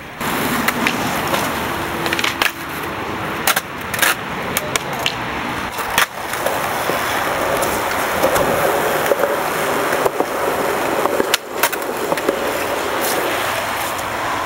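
Skateboard wheels rolling over concrete in a steady rumble, broken by several sharp clacks of the board on the ground.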